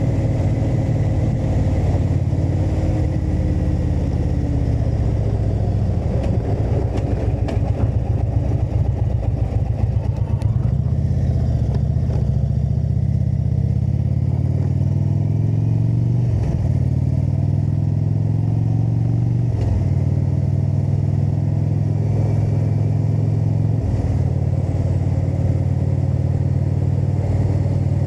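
Indian cruiser's V-twin engine running under way. It cruises steadily, then revs up through the gears, with two sharp drops in pitch at the shifts about halfway through and a brief dip near the end.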